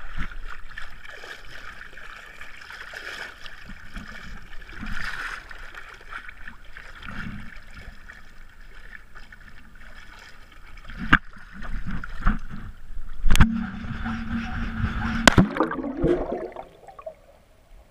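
Water sloshing and splashing against a GoPro in its waterproof housing at the surface, with three sharp knocks on the housing. Near the end the camera goes under and the sound turns to muffled bubbling gurgles, then fades.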